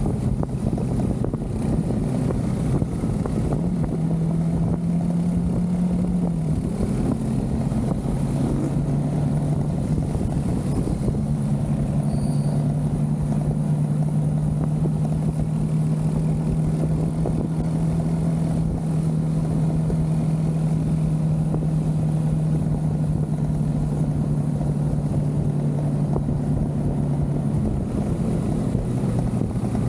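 Motorcycle engine running while riding. Its note steps up for a couple of seconds about four seconds in, then holds a steady higher drone from about eleven seconds until it drops near the end.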